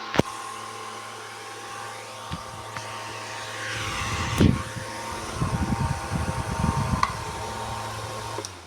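90 W 3-in-1 industrial fan running steadily, its motor humming under the rush of air. A click comes just after the start, and gusty low rumbles come and go in the middle. The sound falls away at the very end.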